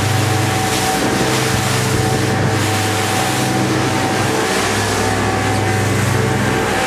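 Boat engine running steadily underway, a constant low drone with a steady hum of tones above it, over rushing wind and water noise.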